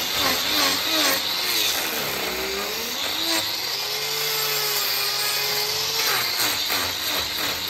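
Angle grinder with a hoof-trimming disc grinding the horn of a cow's hoof. Its pitch dips and recovers again and again as the disc is pressed in. From about two to six seconds in it runs steadier with a nearly even tone.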